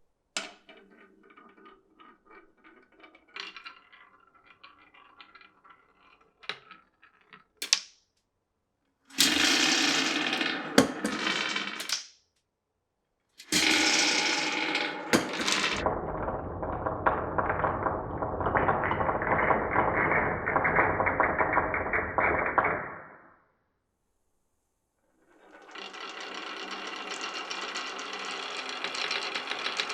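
Marbles rolling and clattering through a marble run: light clicking and tapping at first, then several loud runs of rolling rattle separated by brief pauses, the longest lasting about seven seconds, with another starting up near the end.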